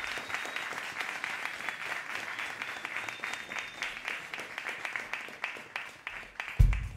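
Small audience clapping and applauding between songs, with a thin high steady whistle over the first half; the applause thins out, and near the end a loud bass drum hit starts the next song.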